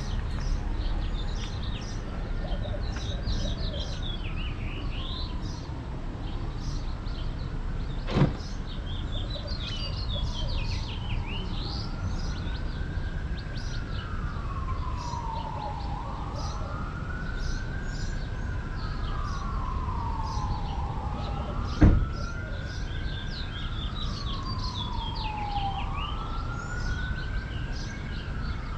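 Emergency-vehicle siren wailing in a slow rise and fall about every four seconds, faint at first and growing louder, over steady street noise. Small birds chirp throughout, and two short sharp knocks come about eight and twenty-two seconds in, the second louder.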